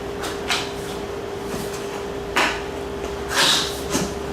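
Folding cardboard display panels being handled, the shelf's tabs pushed into the back panel's slots: a few short scrapes and taps, with a longer rub about three and a half seconds in, over a steady low hum.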